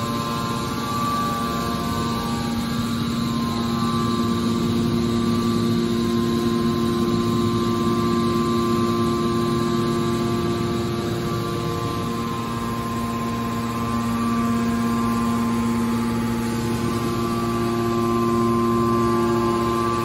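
Hydraulic power unit of a scrap-metal baler running: electric motor and hydraulic pump giving a steady hum with several held tones. The lowest tone fades briefly about halfway through, then comes back.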